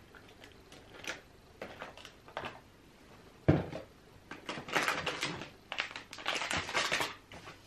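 Makeup products and containers being rummaged through while searching for one: scattered clicks, a single loud knock about three and a half seconds in, then a stretch of clattering and rustling.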